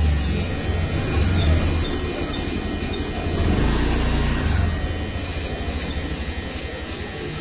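Handheld electric massager running against the body, a buzzing, rattling low rumble that swells as it is pressed in. It is loudest a little past the middle and eases off after about five seconds.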